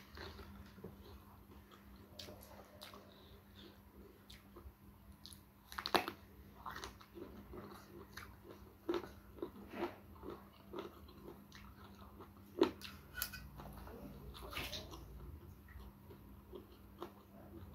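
Close-up mouth sounds of chewing and biting raw vegetables and rice, with irregular crisp crunches. The loudest crunches come about six seconds in and again about twelve and a half seconds in.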